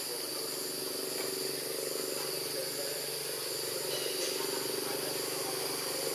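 Steady drone of forest insects such as cicadas and crickets, with a high chirp pulsing about once a second over a low, even hum.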